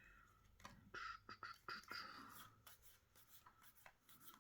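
Faint handling of Magic: The Gathering trading cards: soft slides and light taps of card against card as they are flipped through, busiest from about one to two and a half seconds in.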